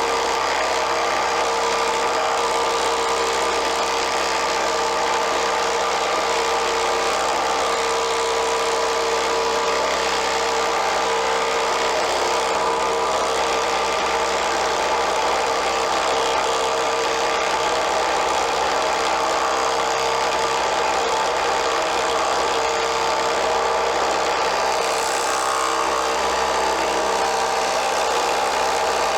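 Ryobi ONE+ HP 18-volt brushless impact driver (PBLID02) running at full trigger without a break, its hammer impacting continuously under sustained load in a torture test. The sound is steady and loud.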